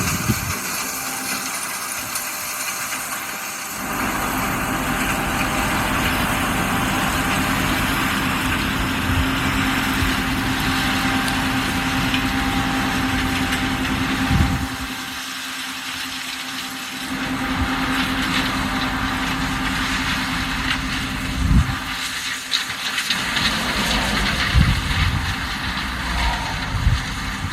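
Traffic on a busy highway: cars and trucks going by with tyre and engine noise that swells and eases, over a steady engine hum.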